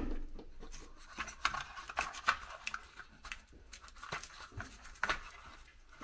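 Hands rummaging through small hardware and cardboard boxes on a countertop: an irregular string of light clicks, taps and rustles as small objects are picked up and set down.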